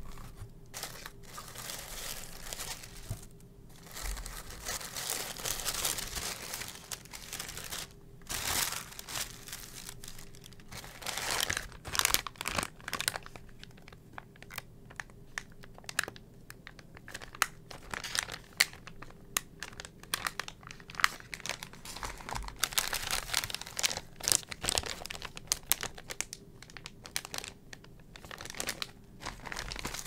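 Tissue paper and clear plastic packaging crinkling and rustling as a box is unpacked by hand, with irregular sharp crackles and taps that grow more frequent in the second half.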